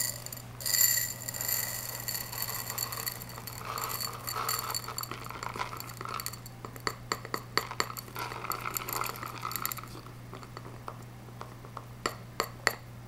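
Small pieces of a reborn doll's filling poured into a glass cup: a stream of clinks against the glass, which keeps ringing. The stream eases off about ten seconds in, and a few separate clinks follow near the end.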